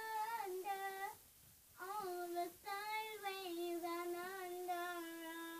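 A young girl singing a wordless tune in long, drawn-out notes, breaking off briefly about a second in.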